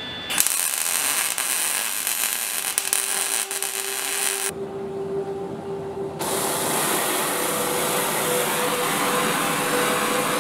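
MIG welder crackling as it lays a weld on sheet steel, for about the first four seconds. After a short drop, a steady hiss carries on to the end with a faint steady tone under it.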